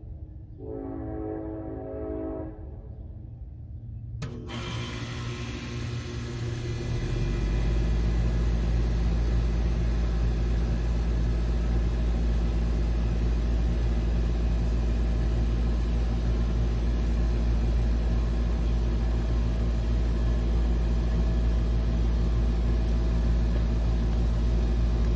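2003 Bryant central air conditioner starting up: a sharp click about four seconds in, then a steady hiss, and about three seconds later the compressor comes in with a loud, steady low hum that runs on. The compressor now starts right away rather than with a delay, since the coils were cleaned.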